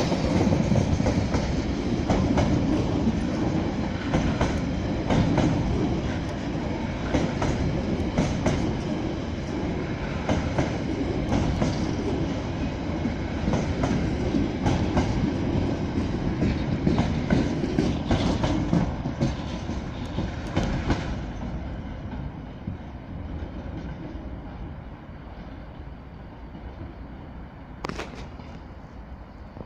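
Freight container wagons rolling past, their wheels clattering over the rail joints in a steady repeating rhythm over a heavy rumble. About two-thirds of the way through the clatter thins out and the noise fades as the end of the train draws away.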